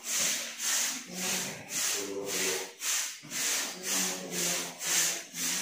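Wide paint brush rubbing back and forth on a plastered wall, laying on mint-green emulsion in steady, even strokes of about two a second.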